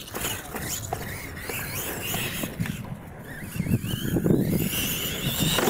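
Radio-controlled monster trucks driving on a dirt track: small motors and gears whining in rising and falling pitch with the throttle, tires scrabbling over the dirt, loudest about four seconds in.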